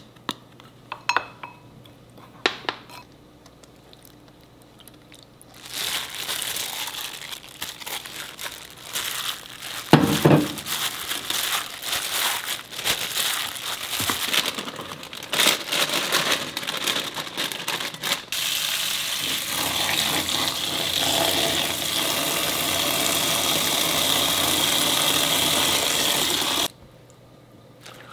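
Thinly sliced beef being tossed by hand in marinade in an enamel bowl: wet squishing and rustling, with a knock against the bowl about ten seconds in. After that comes a steady hissing rush for about eight seconds that stops suddenly. A few light clicks come before the mixing starts.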